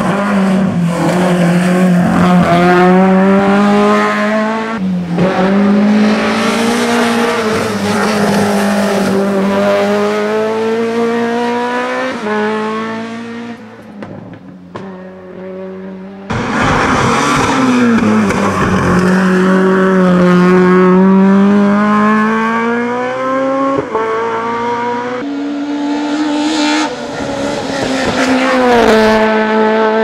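Peugeot 106 S16's 1.6-litre sixteen-valve four-cylinder engine running hard at high revs, its pitch climbing under acceleration and dropping at gear changes and on lifting for bends, again and again. Near the middle it fades away, then is suddenly loud again.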